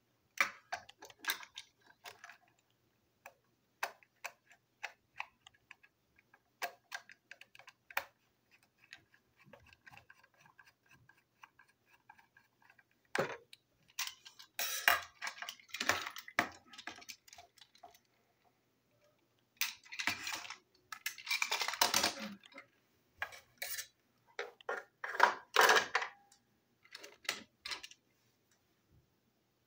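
A plastic toy train engine and coach being handled and fitted back together: scattered sharp clicks and small rattles, then louder stretches of plastic parts rubbing and clattering in the second half.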